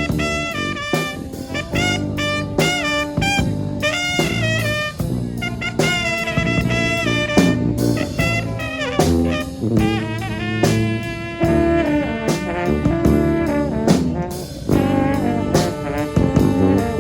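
A small brass band of four horns playing a tune together in harmony, with many short rhythmic notes and some bent notes.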